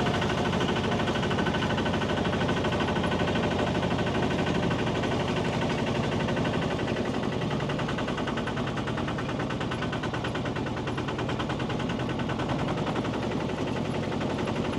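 Tractor's diesel engine running steadily under load with a rapid, even pulsing beat, heard from the passenger cart it pulls.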